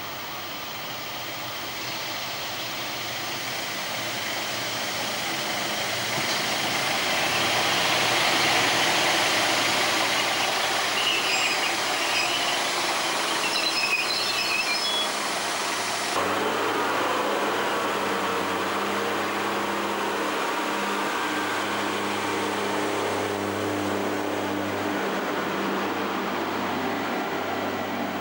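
A Pacer diesel railbus comes past the platform, its wheel and track noise building to a peak, with brief high wheel squeals about halfway through. After a sudden cut, a diesel railcar's engine runs steadily with a low, even tone.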